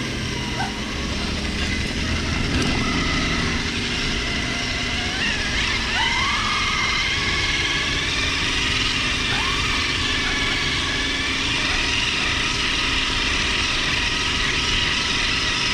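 Radio-controlled scale crawler's electric motor and gearbox whining steadily as it drives over rough dirt, heard from on board, with the pitch rising briefly a few times as the throttle opens.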